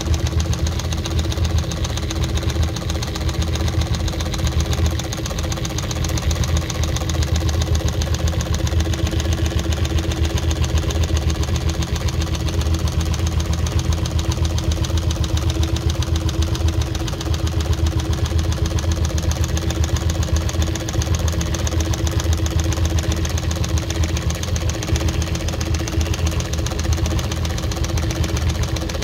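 Singer 114W103 chain-stitch embroidery machine running steadily, sewing through two layers of genuine leather about 2.8 mm thick together. Its needle keeps a fast, even stitching rhythm over a steady low hum.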